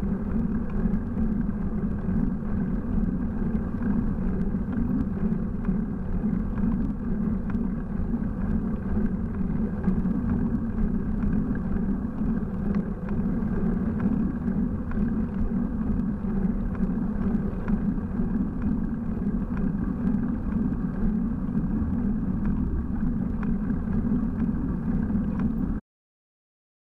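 Steady rush of wind and tyre noise from a moving bicycle, heard as wind on a bike-mounted microphone, cutting off to silence near the end.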